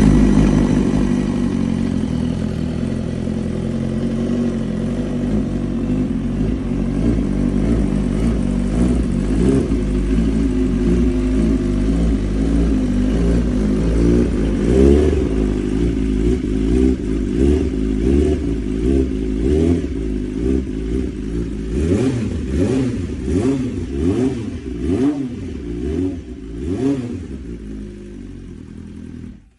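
2015 BMW S1000RR's inline-four engine through an Austin Racing exhaust, running just after start-up, its idle settling lower over the first couple of seconds. From about halfway in it is blipped on the throttle again and again, quick revs rising and falling back to idle.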